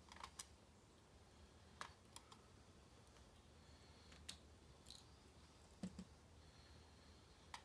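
Faint, scattered small metal clicks, about a dozen, as the lock's pins and springs are handled and set down in a pinning tray.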